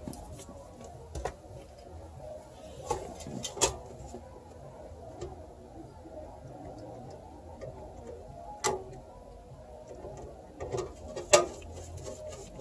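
Scattered clicks and knocks of hands working on a PC case and its parts during assembly, about six sharp ones, the loudest near the end.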